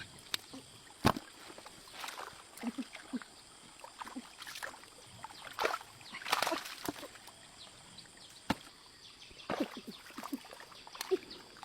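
Irregular splashing and sloshing of shallow stream water, broken by a few sharp knocks, the loudest about a second in.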